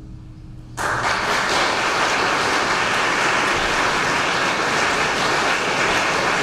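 The last piano chord dying away, then audience applause breaking out suddenly under a second in and continuing steadily.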